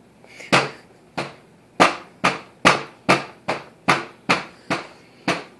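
A metal fork banged repeatedly on a plastic high-chair tray: about eleven sharp knocks at an uneven pace of roughly two a second.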